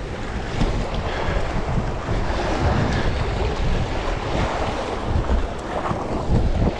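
Wind buffeting the microphone in uneven gusts, over the steady wash of waves breaking against shoreline rocks.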